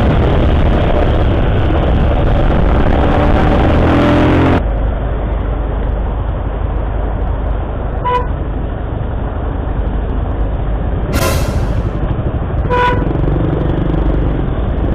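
A vehicle engine running and revving under heavy wind noise, then, after an abrupt cut, steady road-traffic noise broken by several short car-horn toots.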